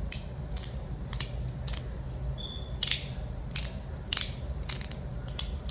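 Resin-printed magnetic fidget slider being slid back and forth, its plates snapping into place against the corner magnets with sharp clicks, about two a second at an uneven pace. The clicking is not insanely loud.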